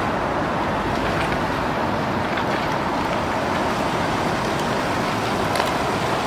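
Steady, even rumbling noise of a vehicle outdoors, with a few faint clicks.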